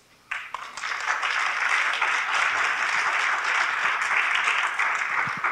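An audience applauding: the clapping starts suddenly, fills out within the first second, holds steady, and begins to die away near the end.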